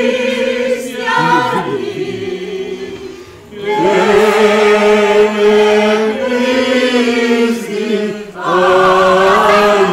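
A small group of men and women singing a Greek Christmas carol together, in three long phrases of held notes with brief breaths between them.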